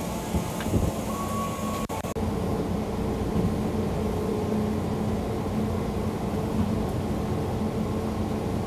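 Steady hum inside an electric commuter train car, its equipment and air conditioning running with a low drone and a steady mid tone. A click about two seconds in marks a change in the sound.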